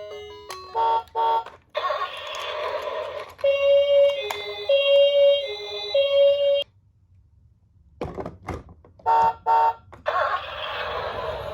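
Two-tone ambulance siren sound, alternating high and low notes, that cuts off suddenly about two-thirds of the way through. Two short beeps and a stretch of hiss come before it, and the beeps and hiss start over after a short silence near the end.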